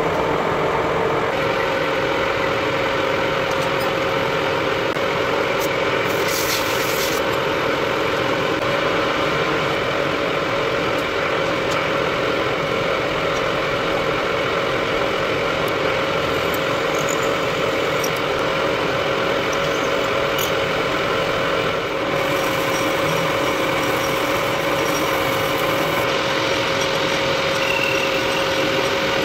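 Metal lathe running steadily under cut, a small metal part spinning in the chuck as it is faced, drilled and turned. A steady machine hum, with a higher hissing cutting noise that comes and goes a few times.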